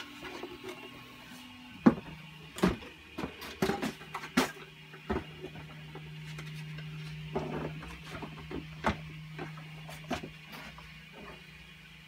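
Irregular knocks and clicks of hard 3D-printed plastic robot leg parts being handled and slotted onto the hip mounting, over a steady low hum that drops in pitch about two seconds in.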